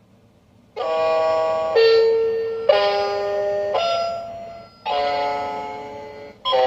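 Cheap miniature toy electronic keyboard played one key at a time: a series of held electronic notes of about a second each, starting a little under a second in, each stopping as the next key is pressed.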